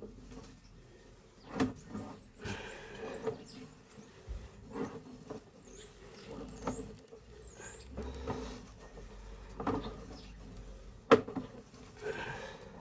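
Drain inspection camera's push-rod cable being pulled back through a sewer pipe: irregular knocks and clunks every second or two, the loudest near the end, with a few faint squeaks in the middle.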